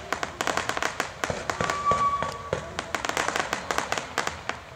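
Fireworks going off: a dense run of sharp cracks and pops, several a second, with a short whistle about two seconds in.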